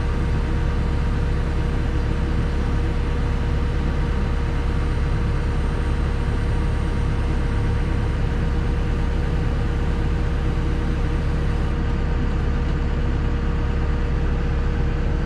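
Cat 313 excavator's diesel engine running steadily at an even, unchanging speed.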